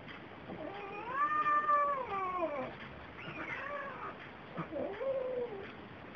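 Domestic cats mating, with a drawn-out yowl: one long call rising and falling, then two shorter calls.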